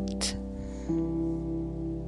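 Gentle background music of sustained, ringing instrument notes, with a new chord sounding about a second in. A short soft hiss comes near the start.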